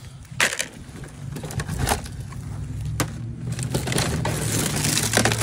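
Plastic bags crinkling and hard clear plastic containers clicking and knocking as they are handled, with a few sharp clicks. A low steady hum sits underneath from about a second in.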